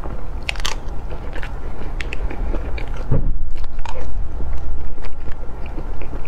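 Close-up mouth sounds of a person eating soft cream-layered sponge cake: chewing with many small wet clicks and lip smacks, and a low thump about three seconds in.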